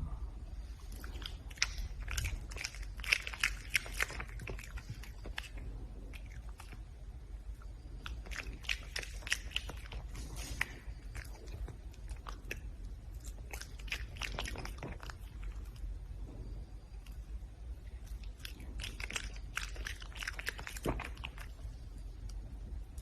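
Red panda chewing and crunching food in four bouts of crisp, crackling bites, with quieter pauses between them, over a low steady hum.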